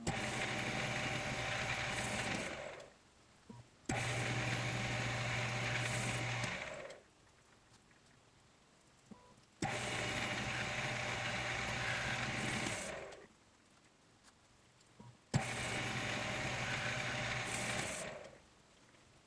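Spindle motor of a Shoptask XMTC Gold lathe-mill combo, sped up five times, running in four separate bursts of about three seconds: each starts suddenly with a click and trails off as the spindle spins down, during light turning passes on a bronze flange.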